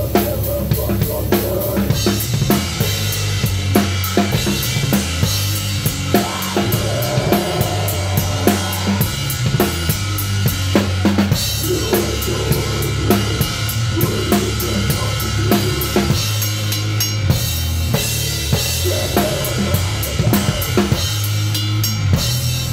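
A metal band playing live, picked up close to the drum kit: a rapid run of kick drum and snare hits under washing cymbals is loudest, with steady low bass and guitar notes underneath.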